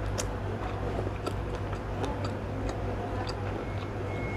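A person eating close to the microphone: soft, irregular mouth clicks and smacks of chewing, over a steady low hum.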